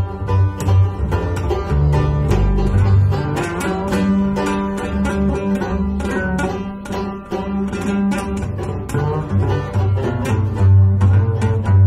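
Banjo and plucked double bass playing an instrumental passage of a song, with the banjo's quick picked notes over walking bass notes.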